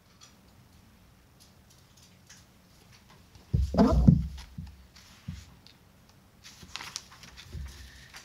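Handling noise from a hardcover picture book being lowered and moved: a loud, low bump and rustle about three and a half seconds in, then softer rustles and a few light clicks near the end.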